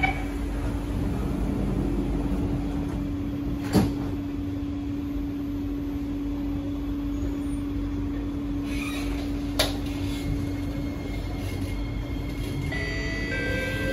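Inside a metro train car: the sliding doors shut with a thud about four seconds in over a steady cabin hum. Near the end the traction motors start a rising whine as the train pulls away.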